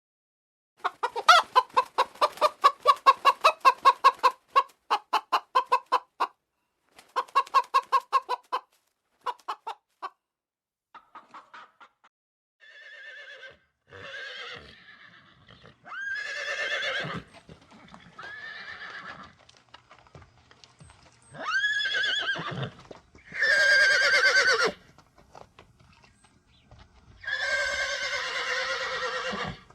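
A chicken clucking in rapid runs of short, evenly spaced clucks for about ten seconds. Then a horse neighs, several separate whinnies with the pitch sweeping up and wavering.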